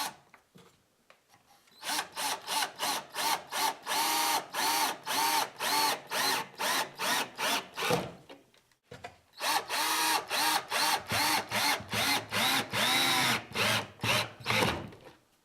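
Power drill run in quick trigger pulses, its whine rising and falling with each pulse, in two runs with a short pause between. The drill is driving screws that fix a newel post down to a floor beam.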